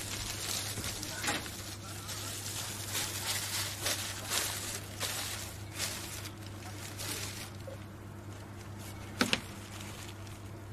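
Plastic grocery bags rustling and crinkling in irregular bursts as items are taken out, over a steady low hum, with one sharp knock about nine seconds in.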